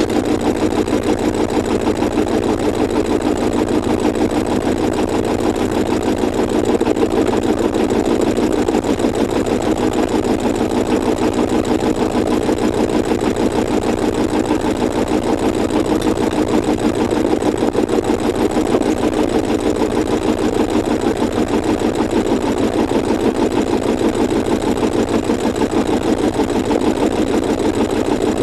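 Sailboat's engine running steadily, with a fast, even beat.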